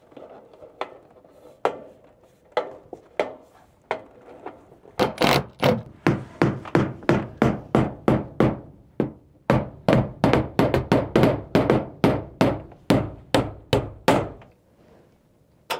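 Hammer blows on steel roof flashing trim. A few scattered light taps come first, then about five seconds in a quick run of sharp, ringing strikes at about three a second, which stops shortly before the end.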